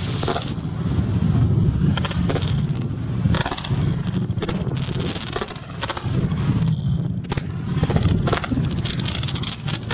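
Consumer fireworks going off in a rapid, irregular run of crackles and pops, over strong wind rumbling on the microphone. A short high whistle sounds right at the start.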